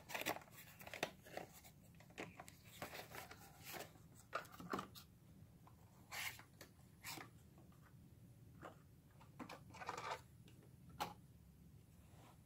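Cardboard box and clear plastic clamshell packaging of a diecast model car being handled: scattered faint rustles, scrapes and clicks.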